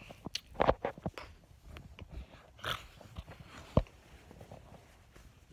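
Handling noise from a phone being carried while walking: scattered soft knocks, rubbing and footsteps, with one sharper knock a little under four seconds in.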